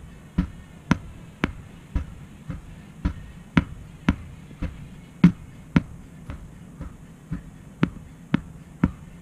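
Hammer blows on the rubber of a large tractor tire, a steady run of about two strikes a second, some harder than others.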